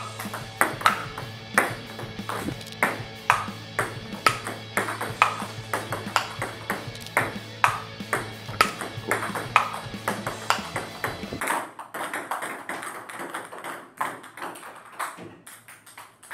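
Table tennis ball clicking repeatedly off paddles and table in a rally, over background music that stops about two-thirds of the way through while the clicks carry on.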